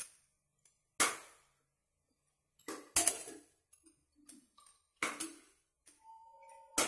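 Pressure-cooker pot clattering as marinated chicken pieces are turned in it by hand: five sharp knocks spaced a second or two apart, each ringing briefly.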